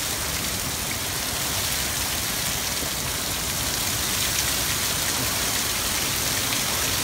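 Heavy hurricane rain pouring down steadily as an even, unbroken hiss.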